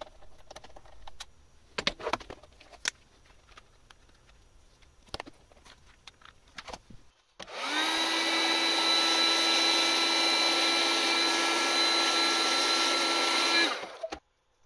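Heat gun running for about six seconds, shrinking heat-shrink tubing onto wire ends. Its fan spins up with a slight rise in pitch, then blows steadily with a whine before cutting off. Before it come faint clicks and handling sounds from a screwdriver at the screw terminals.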